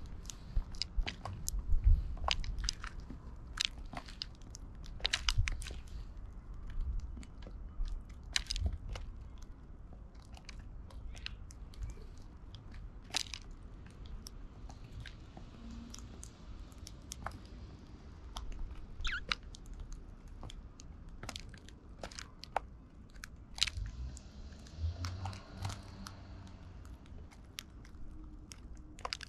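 Eurasian tree sparrows pecking and cracking seeds close to the microphone: a quick, irregular run of sharp clicks and crunches.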